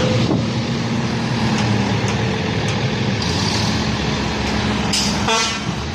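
Engine of a heavily loaded old log truck running steadily as the truck crawls over muddy ground.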